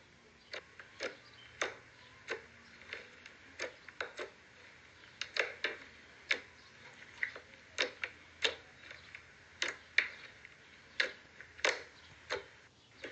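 Soft, stretchy slime being squeezed and stretched by hand, giving off irregular sharp clicks and pops, about one or two a second.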